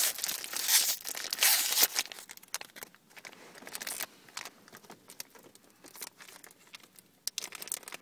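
A foil blind-bag packet being torn open and crinkled by hand. It is loudest for the first two seconds, then turns to quieter, intermittent crinkling as the packet is handled.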